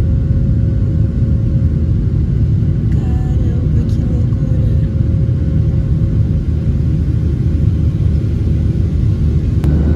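Airliner cabin noise: a steady, loud engine rumble with a constant hum running through it.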